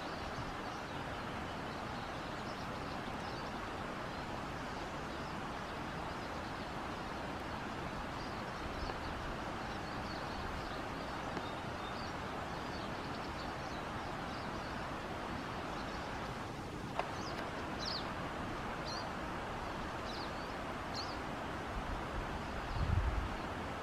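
Steady outdoor background hiss with faint, scattered bird chirps, a few clearer ones in the last third. A brief click about two-thirds through and a low rumble near the end.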